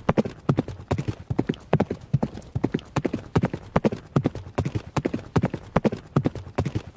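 Horse running: rapid hoofbeats striking the ground in a steady, repeating rhythm, several strikes in each quick cluster.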